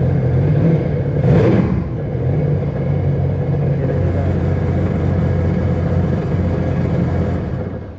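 Sea-Doo GTX 300 personal watercraft's Rotax 1630 ACE three-cylinder engine running steadily, now firing after a new spark plug was fitted, since the old plug was why it would not start. A short rush of noise comes about a second and a half in, and the engine is shut off near the end.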